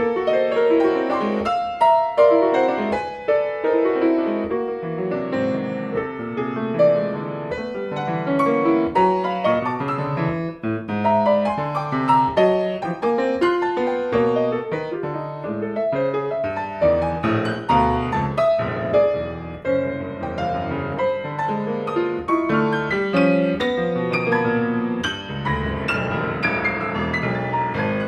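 Grand piano played solo: a fast, dense stream of notes spread over the middle and upper range, running on without a break.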